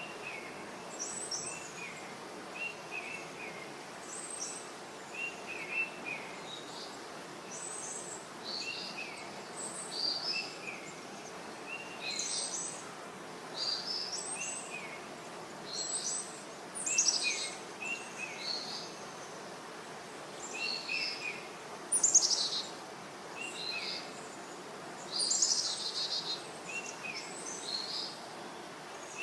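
Several birds chirping and calling in short repeated phrases over a steady background hiss, like a natural outdoor ambience.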